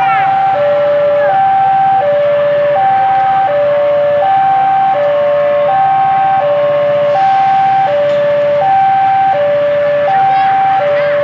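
Railway level-crossing warning alarm sounding its two alternating electronic tones, high then low, each held about two-thirds of a second and repeating steadily. It warns that a train is coming and the crossing is closed.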